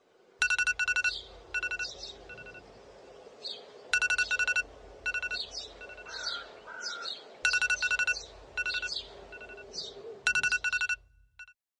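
A repeating electronic beeping pattern: a quick run of rapid beeps, then a few single beeps, recurring about every three and a half seconds, with short bird-like chirps between the runs.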